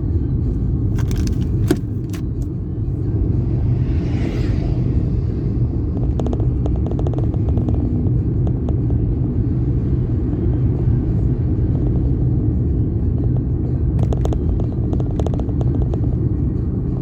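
Vehicle on the move: a steady low rumble of engine and road noise, with a short rushing swell about four seconds in and scattered clicks and ticks.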